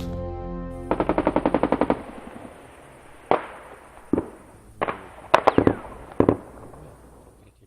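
A burst of automatic gunfire, about ten shots in a second, followed by scattered single shots, each with a short echoing tail.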